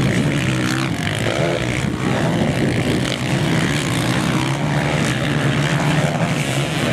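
Several motocross bikes racing over jumps, their engines revving together in overlapping waves that rise and fall in pitch.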